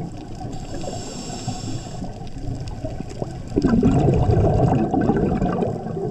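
Scuba diver breathing through a regulator underwater: a faint hiss of inhaling through the regulator about half a second in, then exhaled bubbles gurgling for about two seconds from about three and a half seconds in.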